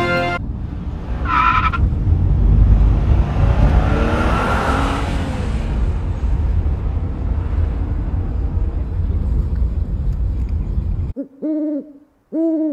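Steady low road rumble inside a moving passenger van. It cuts off near the end, and four short hoots follow, each rising and falling in pitch.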